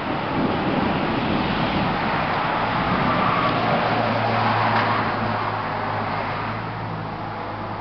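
A road vehicle passing by: its noise swells to a peak a few seconds in, then fades away.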